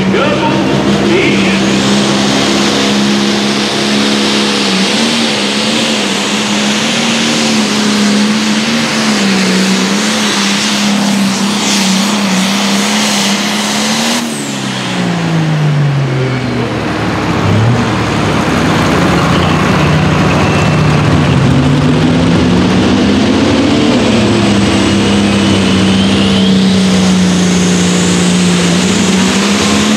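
A limited pro stock pulling tractor's turbocharged diesel engine running flat out down the track at a steady pitch, then falling away about fourteen seconds in as the pull ends. Near the end a second pulling tractor's engine rises and holds steady.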